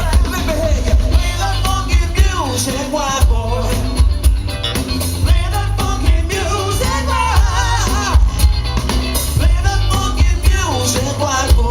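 Live rock band playing a song with a lead singer, a heavy bass line and a steady drum beat.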